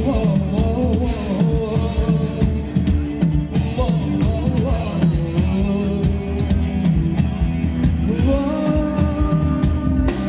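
Live band playing Thai ramwong dance music: a drum kit keeps a steady beat under a gliding melody line.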